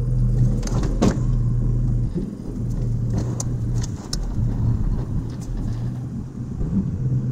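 A vehicle engine running steadily at low revs as it pushes a dead pickup up onto a trailer, with several sharp knocks and clanks from the truck and trailer.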